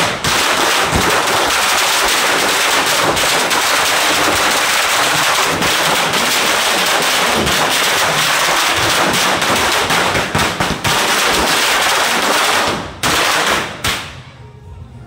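A long string of firecrackers going off in rapid, continuous crackling. It breaks off briefly near the end, crackles for a moment more, and stops about a second before the end.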